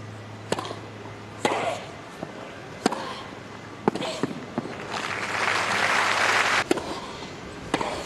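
Tennis rally: ball struck by rackets, a sharp pop about once a second, with a stretch of hiss-like noise from about five seconds in until a hit near seven seconds.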